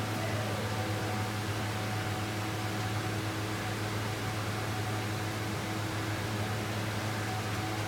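Steady machine hum: a low drone with a hiss over it and a few faint steady tones, unchanging in level.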